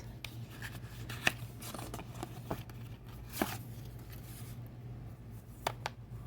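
Paper and card being handled: soft rustling with a few sharp light taps, one about a second in, one near three and a half seconds, and two close together near the end, over a steady low hum.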